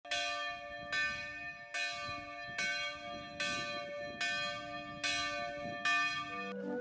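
A single church bell tolling, struck about eight times a little under a second apart, each stroke ringing on into the next.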